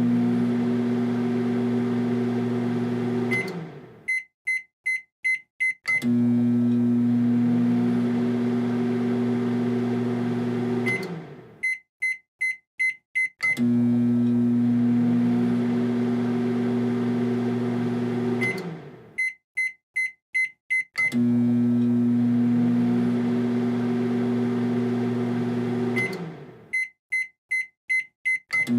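Microwave oven running with a steady hum for about five seconds, then winding down and stopping, followed by a quick row of about five high beeps that signal the end of the cycle. The sequence repeats every seven to eight seconds.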